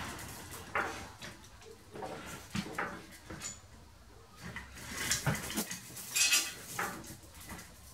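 Irregular metal clinks and knocks as a heavy steel swing-extender block hung on a hoist chain is set onto a lathe saddle, with a louder rattling run about five to six and a half seconds in.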